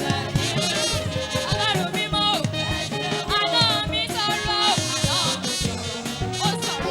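Lively church praise music with a steady drum beat.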